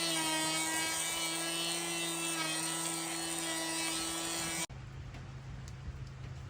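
Electric tool motor running steadily with a high whine. About two-thirds of the way through, it cuts abruptly to a quieter, lower steady hum.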